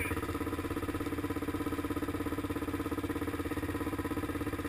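ATV engine running steadily at low revs, an even, fast pulsing beat with no revving.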